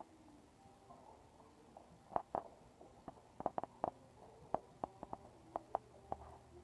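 A ridden horse walking on sand: a dozen or so light, irregular clicks and knocks, clustered from about two seconds in until shortly before the end.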